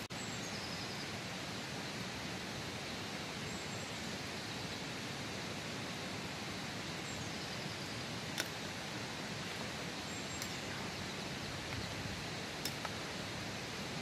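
Steady rushing of a nearby stream, with a few sharp clicks over it in the second half.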